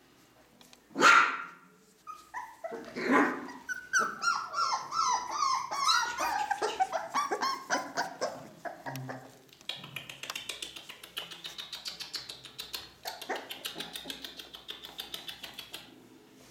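Four-week-old Ca de Bou (Mallorca mastiff) puppies yipping and whining: a sharp yip about a second in, another near three seconds, then a run of short high whines falling in pitch, fading into quieter rapid high squeaks.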